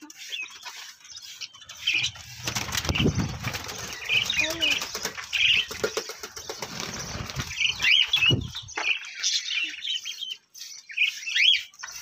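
Budgerigars chirping and fluttering their wings as they are misted from a hand-held spray bottle, with short rushes of noisy flapping at a few points.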